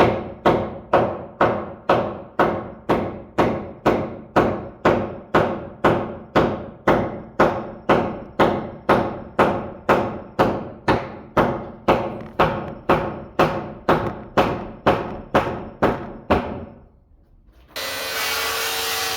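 Hammer blows on wooden floor framing, struck at an even pace of about two a second for some sixteen seconds, each with a short ringing tail. After a brief pause a steady rushing noise starts near the end.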